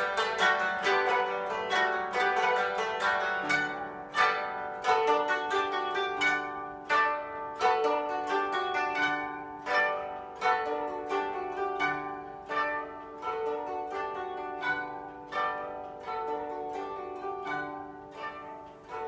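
Koto ensemble, including a 25-string bass koto, playing: a quick, evenly paced run of plucked notes that ring and fade, over occasional lower notes.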